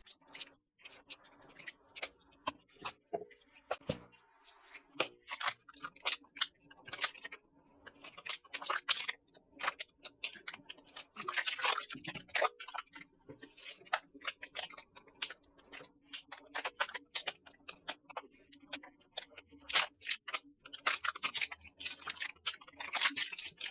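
Faint, irregular clicks, taps and short rustles of hands handling computer hardware and its packaging, over a low steady hum.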